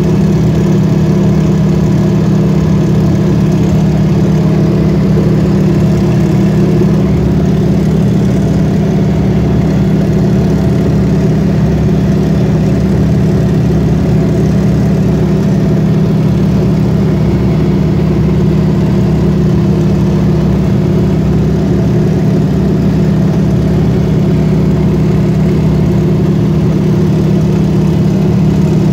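Yak-52's nine-cylinder Vedeneyev M-14P radial engine and propeller running steadily in flight, a loud, unchanging drone heard from inside the cockpit.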